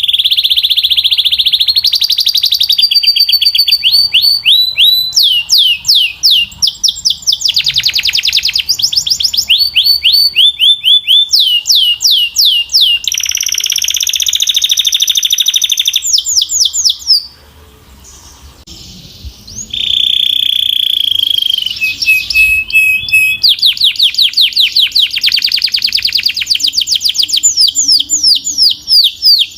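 Belgian canary singing loudly: fast trills of rapidly repeated notes alternating with sustained high whistled tones, with a brief pause a little past halfway.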